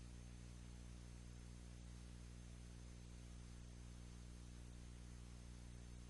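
Near silence: a steady low hum with faint hiss, and no sound of the dial.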